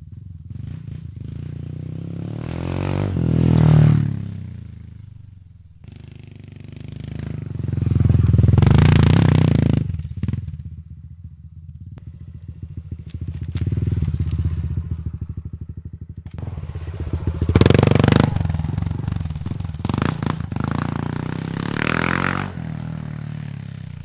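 Honda Trail 125 (CT125) single-cylinder engine running through a Yoshimura Race Straight Cyclone straight-through full exhaust. It swells louder under throttle and falls back about five times.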